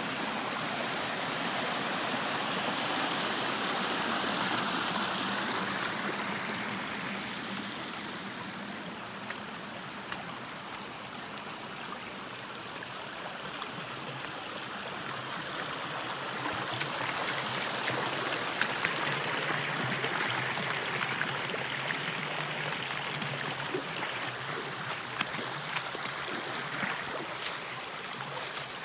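Small rocky creek running and splashing over stones in a steady rush, swelling and easing in loudness twice. Scattered light clicks and taps come over it in the second half.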